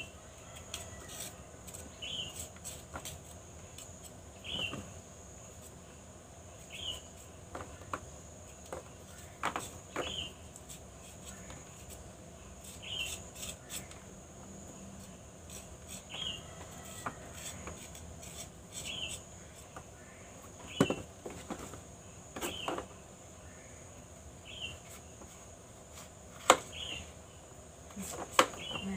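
Small knife peeling and slicing a papaya by hand: soft scrapes and sharp clicks as the blade cuts the fruit, with two louder clicks in the second half. Over it, a bird repeats a short high chirp about every two seconds, and insects keep up a steady high drone.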